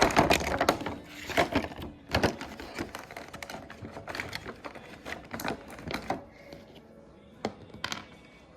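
Hands working a plastic Littlest Pet Shop toy figure free of its packaging ties, making a run of sharp plastic clicks and taps with some rustling. This is dense in the first couple of seconds, then thins to a few scattered clicks.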